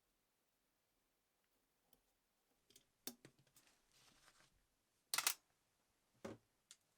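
Quiet room, then a few sharp clicks and knocks of small hard objects being handled, the loudest about five seconds in, with a brief soft scrape between them.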